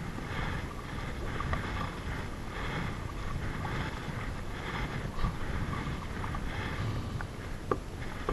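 Kayak paddle strokes: the blade dips and splashes in the water in a steady rhythm of roughly one stroke a second. Under them runs a low rumble of wind on the microphone, and a couple of sharp knocks come in the second half.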